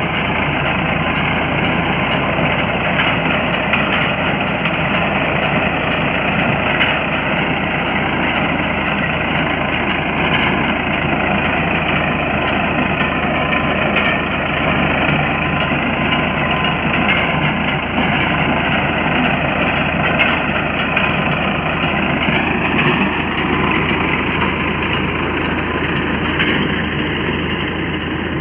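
Farmtrac tractor's diesel engine running steadily while driving a mounted wheat reaper through the standing crop.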